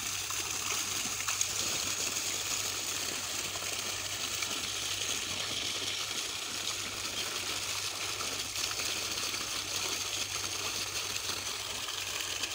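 Water gushing steadily out of a tubewell pump's discharge pipe through a plastic bag tied over the outlet, and splashing onto the ground and into an irrigation channel. A steady low hum runs underneath.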